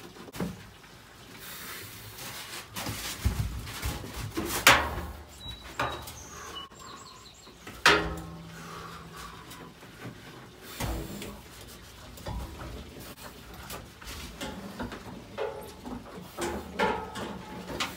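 A heavy dust-collector motor and fan assembly being lifted and manhandled: scattered clunks, scrapes and rattles, with two sharp knocks about four and a half and eight seconds in.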